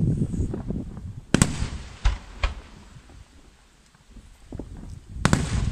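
Aerial firework shells bursting: low rumbling at the start, a sharp bang about one and a half seconds in with two smaller reports after it, a quieter lull, then more loud bangs near the end.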